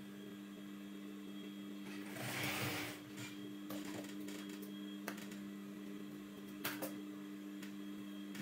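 Industrial lockstitch sewing machine with its motor humming steadily. About two seconds in comes a brief noisy burst lasting about a second, followed by a few light clicks.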